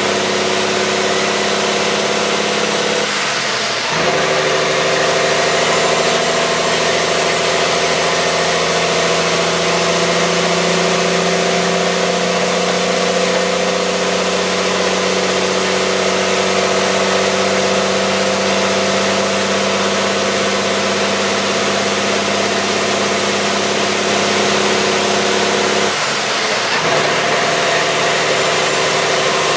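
Cummins diesel engine of a rollback truck pulling under load, heard inside the cab. The engine note breaks off briefly and comes back lower twice, about three seconds in and near the end, as the driver shifts up a gear.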